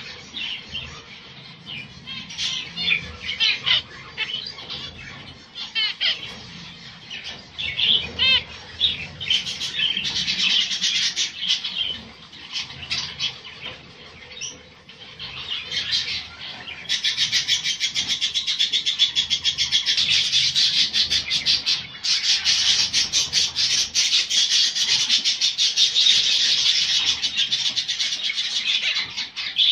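A cage of zebra finches calling. There are scattered short calls at first, then about halfway through a sudden, louder, dense chatter of rapid calls from many birds together.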